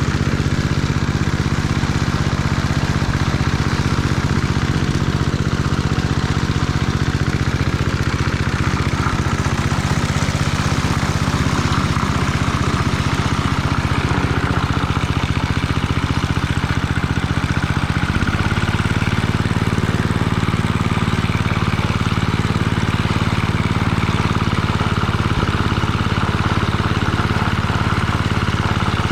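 Small engine of a Locke Triplex reel lawn mower running steadily at raised throttle with the cutting reels engaged while mowing. Its note changes about two-thirds of the way through and then holds steady again.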